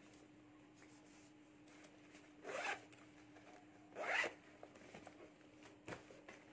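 Zip on a fabric handbag drawn along in two short pulls, each about half a second, about a second and a half apart, followed by a light click near the end.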